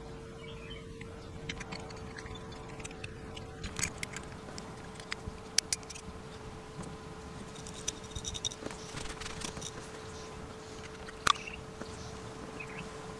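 Small metal clicks and taps as the parts of a nightlatch are handled and fitted together: the spring-loaded latch bolt set into the metal case and the cover plate placed on, with the sharpest click near the end. A steady hum runs underneath.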